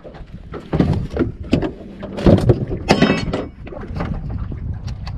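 Knocks, thumps and clatter from handling gear and a fish in a small fishing boat, with a bright rattle about three seconds in, over steady wind on the microphone.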